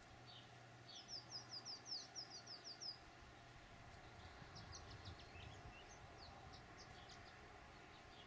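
A small bird chirping faintly: a quick run of about ten high, down-slurred chirps lasting about two seconds, then a few scattered single chirps.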